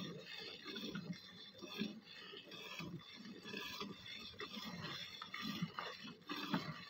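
Cow being milked by hand: jets of milk squirting rhythmically into a steel bucket.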